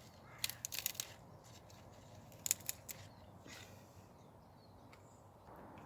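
Short clusters of sharp clicks and snaps as garden vegetable stems are cut during harvesting: a quick run about half a second in, a pair around two and a half seconds, and one more a second later.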